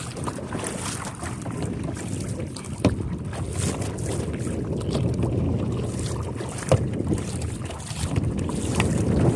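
Double-bladed kayak paddle stroking through the water, with wind buffeting the microphone. Two sharp knocks come about three and seven seconds in.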